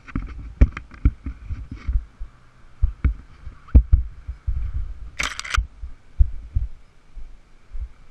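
Muffled thumps and knocks from an action camera in its housing, mounted on a 90cc youth ATV being ridden fast over a rough wooded trail, with a brief scraping hiss about five seconds in.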